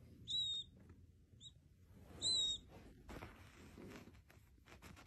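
A tiny bird chick peeping: two clear, high, short peeps about two seconds apart, with a fainter brief chirp between them. Faint rustling and light taps follow in the second half.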